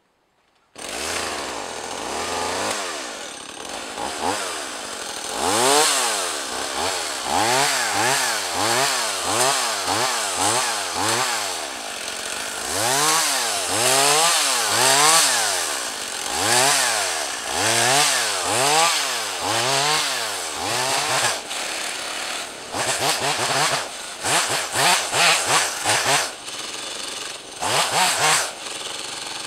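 Stihl MS 180 C two-stroke chainsaw limbing a felled tree: the engine cuts in about a second in, then revs up and drops back about once a second as each branch is cut through. Near the end the throttle comes in short, quick blips.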